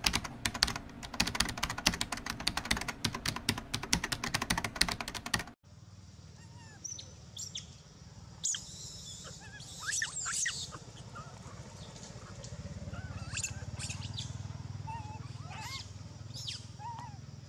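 A rapid, loud run of clicks from an animated intro that stops abruptly about five and a half seconds in. It gives way to outdoor ambience: scattered short high chirps and squeaks over a low steady hum.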